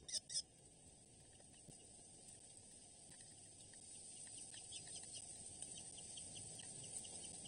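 A Eurasian hobby chick's run of repeated shrill calls, about five a second, breaks off within the first half-second. After that there is only a faint steady hiss with light, quick high ticking.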